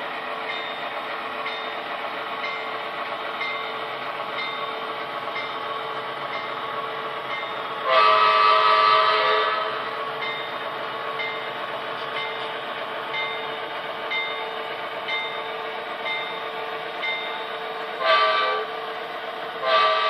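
Model diesel locomotive's DCC sound decoder running its engine sound, with the horn blown three times: a long blast about eight seconds in, a short one near the end, and another starting just before the end. Under it are the steady rolling and faint, even clicking of the freight cars on the track.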